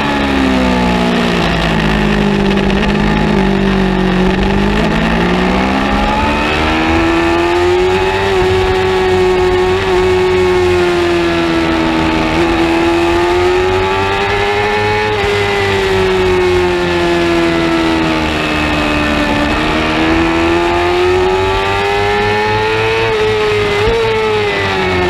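A 600 Supersport race motorcycle's engine at racing speed, heard from the bike itself. Its revs drop under braking at first, then climb and fall in long sweeps through the corners and down the straight, dropping again near the end. Wind rush sits underneath.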